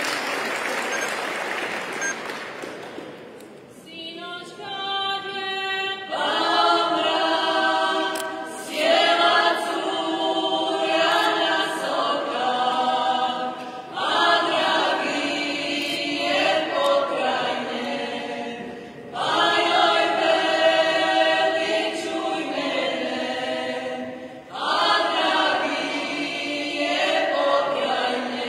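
Applause dying away, then a Croatian village folk singing group, mostly women, singing unaccompanied. One voice starts the song about four seconds in and the whole group joins two seconds later, singing in phrases of about five seconds with short breaks between.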